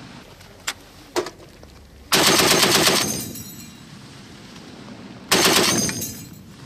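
M2 .50 caliber heavy machine gun firing two short bursts about three seconds apart, each under a second long. Two fainter single cracks come before the first burst.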